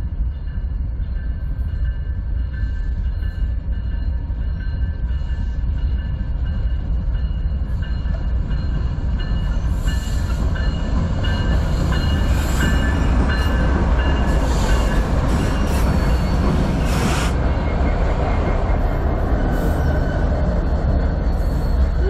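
CN diesel freight locomotives and their train approaching and passing close by, a heavy rumble that grows louder. From about ten seconds in, clattering and rail noise pick up as the locomotives and then the freight cars roll past.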